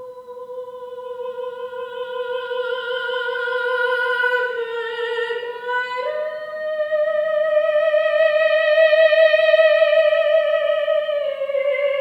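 A woman singing a wordless, open vowel with vibrato, holding long notes that ring out in the reverberant church. The line holds one pitch, dips slightly about four seconds in, steps up to a higher held note around six seconds, then slides back down near the end.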